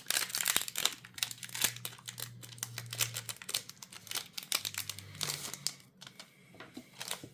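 Foil Magic: The Gathering booster pack wrapper being torn open and crinkled: a dense run of sharp crackles that thins out over the last couple of seconds.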